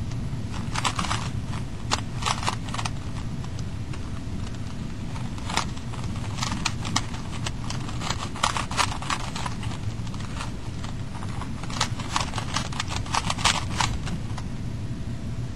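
Rubik's cube being turned rapidly by hand, its plastic layers clicking and clacking in bursts of quick turns with short pauses between, over a steady low room hum.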